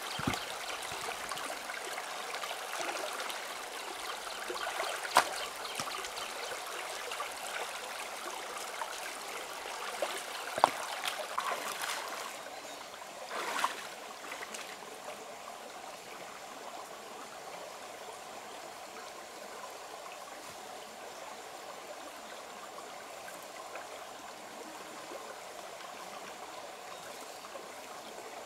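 Shallow rocky stream running and trickling steadily, with a few short sharp sounds in the first half as hands work in the water. The water sound turns quieter about halfway through.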